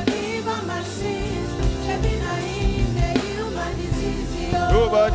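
Gospel music with singing over a steady beat of bass and drums.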